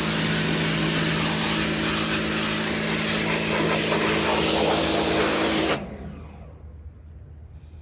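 Pressure washer running and spraying water on pavers: a steady motor hum under a loud hiss of spray that cuts off suddenly near the end.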